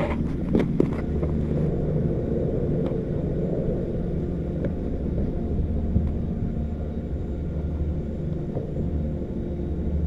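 Detachable chairlift terminal machinery running with a steady low hum and rumble as the chair passes through the station. Two sharp knocks sound within the first second.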